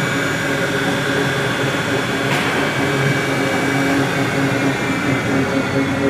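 Mitsui High-Tech MSG-200MH surface grinder running under power: a steady motor hum and whine with several held tones. A brief click comes about two seconds in.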